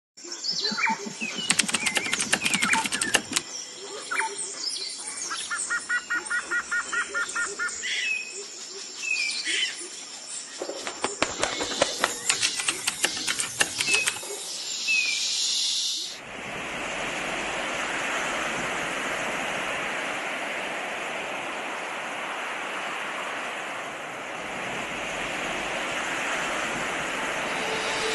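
Birds chirping, with quick fluttering clicks and a short rapid trill. About halfway through, this gives way abruptly to a steady rushing wash of sea surf.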